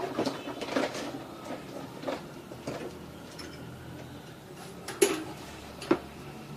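Small steel parts and tools clinking and knocking against each other and the workbench in a string of irregular taps, the sharpest two about five and six seconds in.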